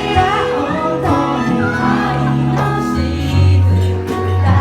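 Live pop song: a short instrumental passage between vocal lines, with sustained bass and guitar.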